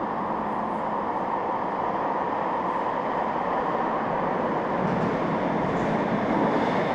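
Link light rail train running, a steady rushing rail noise that grows a little louder toward the end.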